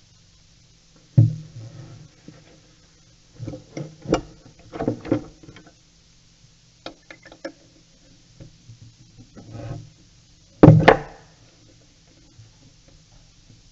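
A few sharp knocks with short runs of clicking and clattering between them, the loudest knock about two thirds of the way through: hand tools being handled and set down on a wooden table. No drill motor is heard.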